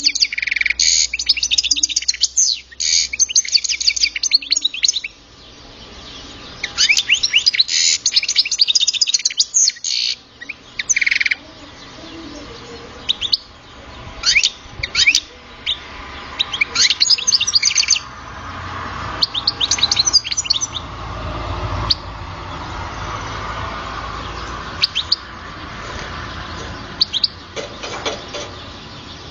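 Young captive Algerian goldfinch singing. It gives long, rapid twittering phrases for the first ten seconds or so, then breaks into scattered single high chirps and short notes.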